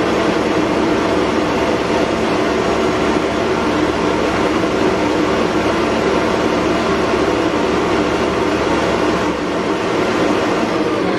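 Stand mixer motor running steadily, beating butter into Italian meringue to finish creaming the buttercream in a stainless steel bowl.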